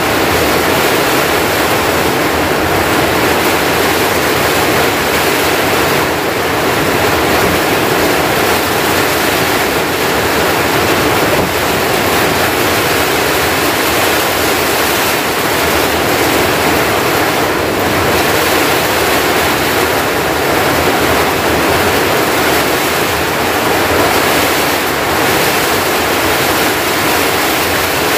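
Heavy storm rain pouring down steadily on a wooden hut, a dense, unbroken hiss of rainfall.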